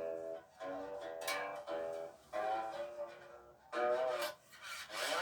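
Single-string diddley bow plucked, about six notes at changing pitches, each ringing on and fading.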